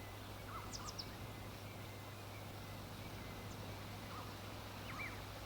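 Outdoor farm ambience: a few short, faint bird chirps over a steady low hum.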